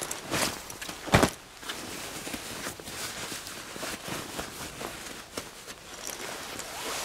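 Clothing rustling and scraping as dark trousers with a leather belt and a jacket are handled on a camouflage tarp, with many small clicks and one sharp knock about a second in.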